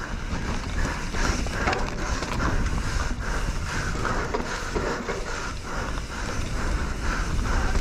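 Mountain bike racing down a rough downhill trail: tyres on dirt and the chain and frame clattering with irregular knocks over the bumps, over a steady low rumble of wind on the microphone.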